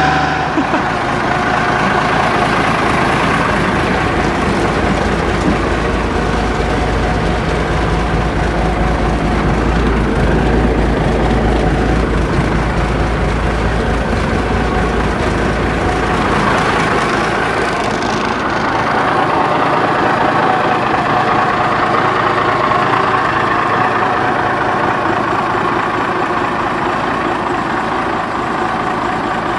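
Diesel engine of a 1986 Peterbilt 310 front-load garbage truck idling, a steady running noise with a deep rumble that thins out a little past halfway.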